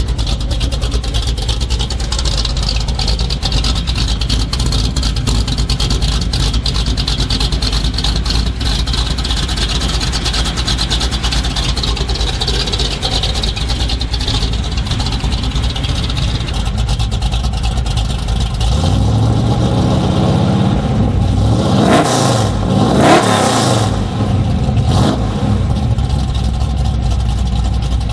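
The 440 big-block V8 of a 1978 Dodge Power Wagon W200 idles steadily through a new 3-inch exhaust with Dynomax Ultra-Flo welded mufflers, which give a near open-exhaust tone. About two-thirds of the way in it is blipped: two quick revs close together, then a smaller one, before it drops back to idle.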